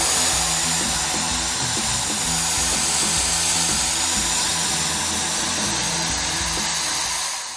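Background music with a repeating bass line over a steady, loud hiss.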